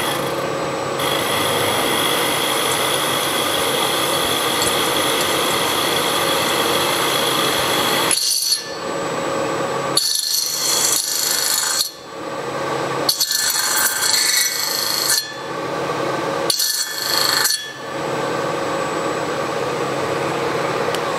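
Milling machine spindle running, its angled end mill cutting the tops of the valve guides down flush with the aluminium bosses of an air-cooled Porsche 911T cylinder head. A steady machining noise with a few steady tones, broken by several short gaps where it drops away and then comes back.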